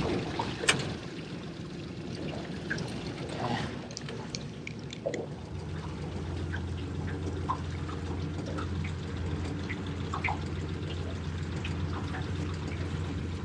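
Water lapping and dripping against a small boat's hull in short, scattered plinks. A steady low hum joins about five seconds in.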